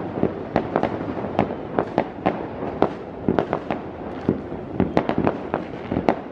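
Many fireworks going off at once: a continuous, irregular volley of bangs and pops, several a second, with no real pause.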